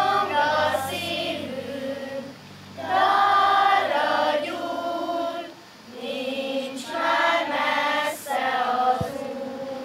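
A choir singing a slow hymn in three sung phrases, with held notes and short pauses for breath between them.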